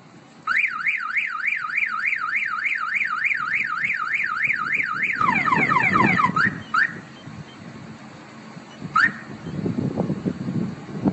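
Truck fuel-tank anti-theft alarm siren sounding, set off as a warning of tampering. It warbles up and down about three times a second, then switches to quicker falling sweeps and stops about six and a half seconds in. A few short rising chirps follow.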